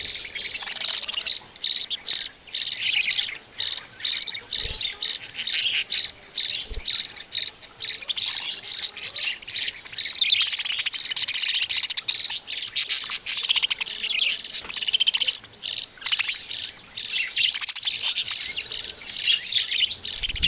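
Baby budgerigars (budgie chicks) chirping in a dense, almost unbroken stream of high, rapid chirps with short pauses.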